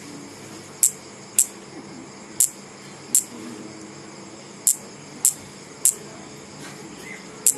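Insect giving short, sharp, high-pitched electric-sounding buzzes, eight of them at irregular intervals of about half a second to a second and a half, over a steady faint hiss.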